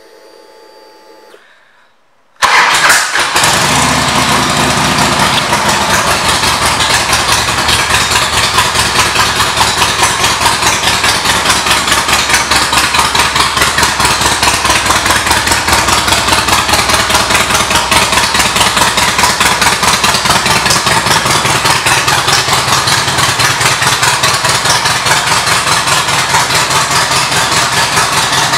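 A 2006 Harley-Davidson Electra Glide Classic's Twin Cam 88 V-twin, fitted with Vance & Hines exhaust, starts suddenly about two seconds in, then settles into a steady pulsing idle.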